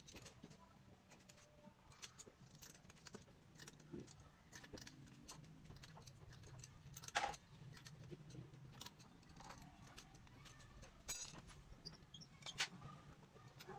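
Faint scattered clicks and light metallic taps of hand tools and small engine parts being handled during a scooter engine top overhaul, with a sharper click about seven seconds in, over a low steady hum.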